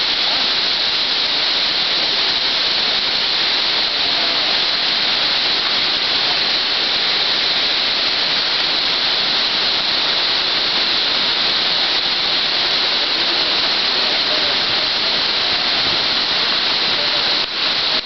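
Waterfall rushing: a loud, steady, unbroken hiss of falling water.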